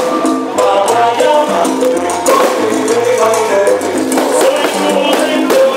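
Music with a stepping bass line, a melody and steady percussion.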